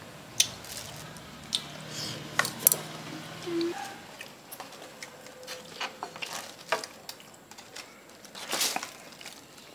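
Chopsticks clicking and scraping against styrofoam takeaway boxes while food is picked up and the boxes are handled: a scatter of short, light taps.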